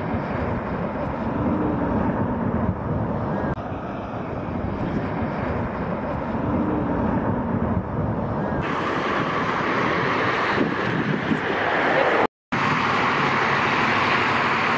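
Distant jet noise from the Blue Angels' F/A-18 Super Hornets flying a formation pass with smoke on, a steady rushing roar. It grows louder and brighter about two-thirds of the way through and cuts out for an instant shortly after.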